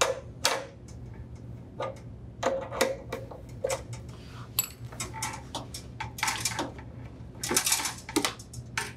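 Irregular metal clicks and clinks of an open-end wrench working the brass compression nut on the refrigerator's water supply line at the inlet valve, loosening it, with a quicker run of clicks near the end.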